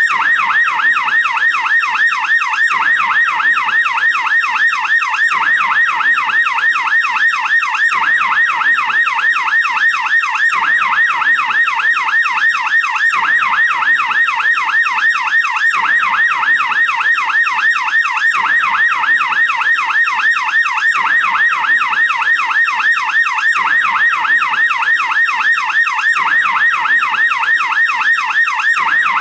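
American police car siren on the yelp setting: a fast up-and-down wail, several sweeps a second, continuing without a break.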